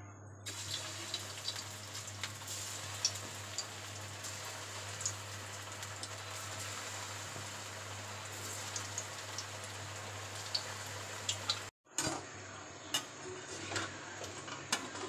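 Soybean dough pieces deep-frying in hot oil in a metal kadai. A steady sizzle starts about half a second in as the dough goes in, with scattered pops and crackles. After a brief break near the end, the crackling returns with a few sharper clicks.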